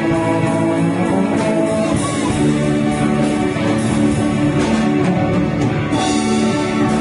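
Live praise band playing a gospel hymn on electric guitars, drum kit and keyboard, with a steady beat.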